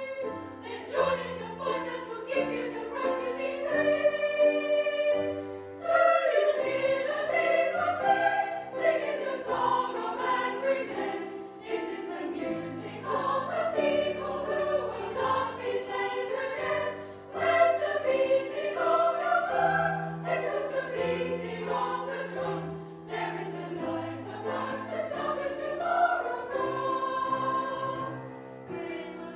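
Mixed amateur choir singing with a brass band accompanying, steady low brass notes held under the voices. The singing pauses briefly about four seconds in while a held chord carries on, then the full choir comes back in.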